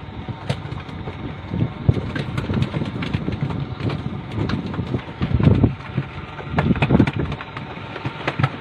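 Wind buffeting the microphone over a fishing boat's engine running, with scattered knocks; the wind gusts loudest about five and a half and seven seconds in.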